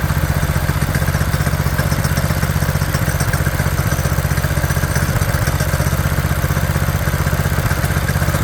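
Go-kart's small gasoline engine idling steadily with an even, rapid pulse, running on its newly fitted replacement carburetor.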